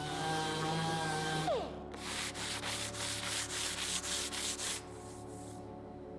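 Abrasive rubbing on an aluminium sheet to roughen its surface: quick back-and-forth strokes, about five a second, for roughly three seconds. Before that a steady hum slides down in pitch and stops about a second and a half in.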